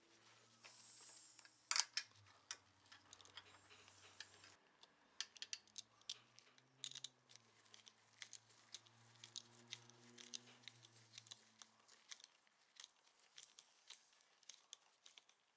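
Faint scattered clicks, snips and rustles of hand work on small parts, the sharpest click about two seconds in, over a faint low hum that fades out near the end.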